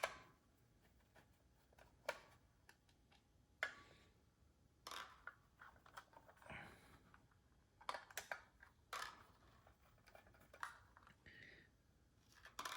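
Faint, scattered clicks and light scrapes of a 3 mm hex key working small screws out of the light's front plate, with the odd screw being handled.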